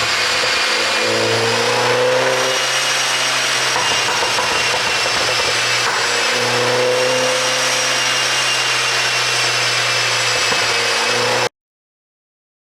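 2013 MINI Cooper S (R56) turbocharged 1.6-litre four-cylinder engine running, its pitch slowly rising and falling over a steady hiss. It cuts off abruptly near the end.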